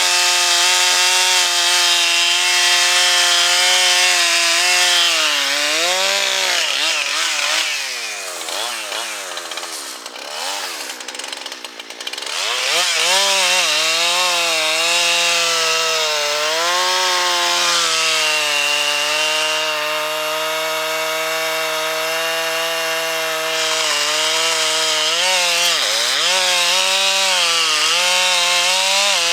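Chainsaw running at high revs and cutting wood, its pitch sagging several times as the chain loads up in the cut and recovering. For a few seconds near the middle the revs rise and fall unsteadily and the sound is quieter.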